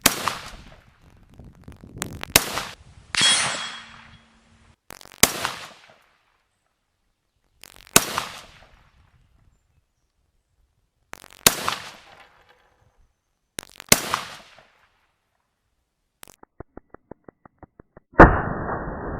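Rifle shots fired one at a time at steel targets, about eight of them a few seconds apart, each with a short ringing tail. Near the end a loud hit is followed by a steady, duller noise.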